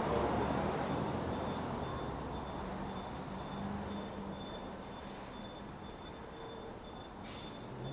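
City street traffic noise: a motor vehicle passing close at the start and fading away, leaving a steady low hum of traffic.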